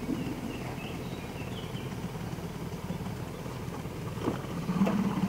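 Small boat motor running steadily at low speed, a low even hum, as the boat creeps through shallow water.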